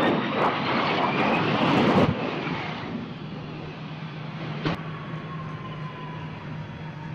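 Jet engine of a Harrier jump jet running loud with a high whine, easing off after about two seconds. A single sharp crack comes about two-thirds through, followed by a thin whine slowly falling in pitch.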